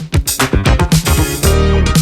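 Background music: an upbeat funk-style track with a steady beat, bass and guitar.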